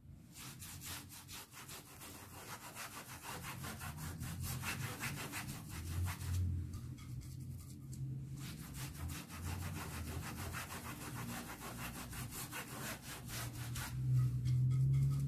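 Paintbrush scrubbing thinned fabric paint into a hand towel's weave: a fast, steady run of rubbing strokes that stops briefly twice, once past the middle and once near the end.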